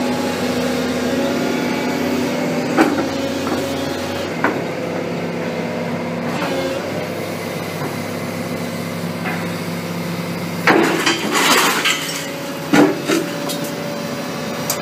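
Zato Cayman FCE20R hydraulic demolition shear working scrap steel, its carrier machine's engine and hydraulics running steadily. A few sharp metal knocks, then a burst of clanking and scraping about 11 seconds in as the jaws take hold of a steel I-beam, followed by a couple more knocks.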